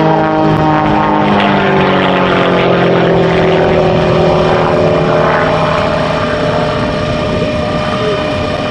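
Aerobatic biplane's propeller engine in flight, a strong droning note whose pitch falls over the first few seconds and then holds steady.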